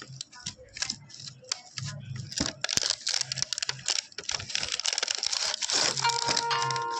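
Toy-gun packaging being unboxed: irregular rustling, crinkling and tearing with scattered clicks, busiest in the second half. A steady pitched tone comes in near the end.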